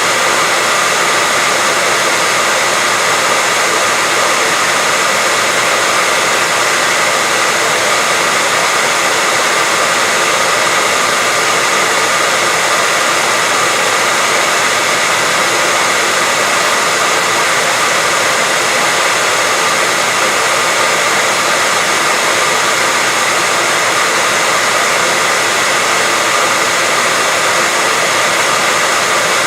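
Continuous white-noise hiss, steady and unchanging, brighter in the upper range with a faint steady tone near the middle.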